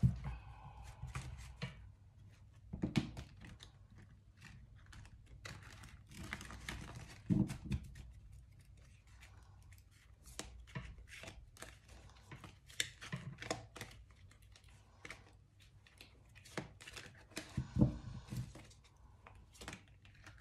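A deck of tarot cards being shuffled by hand: a long run of quick, soft card clicks and riffling rustles, with a few heavier thumps from the deck being handled.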